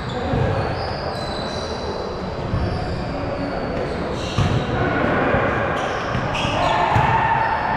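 Basketball being dribbled and bounced on an indoor court, a few irregular thumps, with short high sneaker squeaks ringing in a large reverberant gym.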